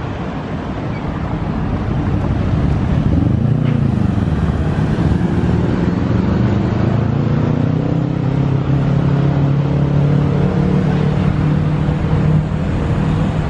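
Street traffic with a nearby motor vehicle's engine, which rises in pitch about four seconds in and then runs steadily.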